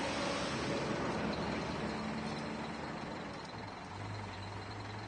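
Truck engine running as it tows a house on a wheeled dolly, with a steady low hum coming in about three and a half seconds in.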